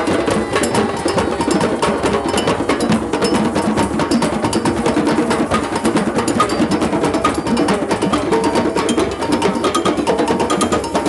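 Drum circle: many djembes, congas and other hand drums struck together in a dense, continuous mass of beats.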